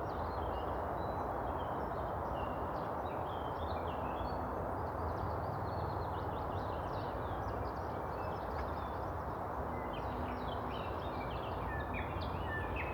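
Small birds chirping and singing in many short, rapid phrases over a steady rushing background noise.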